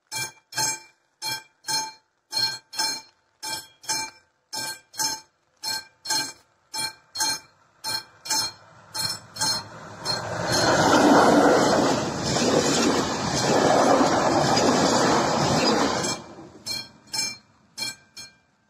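Classic mechanical level-crossing warning bell of an AŽD 71 crossing ringing in steady strokes, about two and a half a second, while the crossing is closed. From about nine seconds in, a train runs through the crossing with a loud rushing rumble for several seconds that covers the bell. The bell then rings a few more strokes and stops near the end as the crossing clears.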